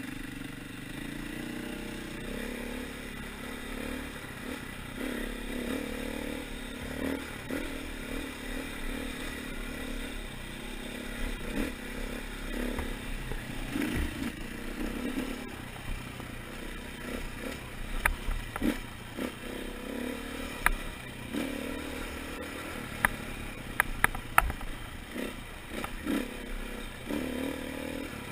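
KTM 450 single-cylinder four-stroke dirt bike riding singletrack, the engine pitch rising and falling with the throttle. Sharp knocks and clatters of the bike over the rough trail, most of them in the second half.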